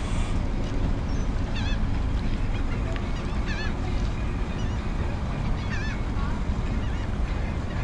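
Birds calling over and over in short, high calls, one every second or two, over a steady low rumble.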